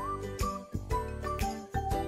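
Background music: a light, tinkling bell-like melody over sustained low notes and a steady beat.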